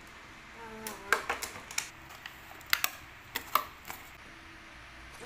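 Clear plastic clamshell cake box being handled and pried open: a string of sharp, irregular plastic clicks and crackles.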